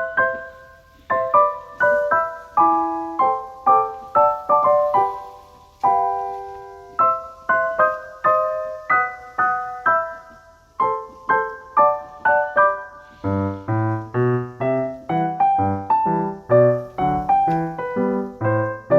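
Background piano music: a melody of struck notes with chords, joined by lower bass notes about two-thirds of the way through.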